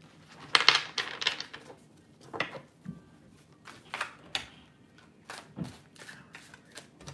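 A deck of tarot cards shuffled by hand: a quick run of flicking cards about half a second in, then a string of separate card clacks and slaps spaced out over the following seconds.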